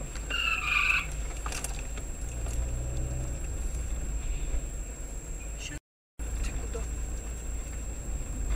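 Steady engine and road rumble inside a moving car's cabin, with a brief higher-pitched sound under a second in and a constant faint high whine. The sound cuts out completely for a moment at an edit about six seconds in.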